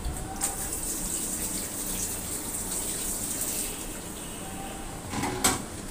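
Water running for about three seconds, then a sharp knock near the end.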